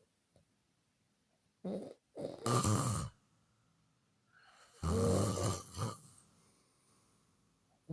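A person snoring: two loud snores about three seconds apart, each lasting about a second, the first with a brief shorter sound just before it.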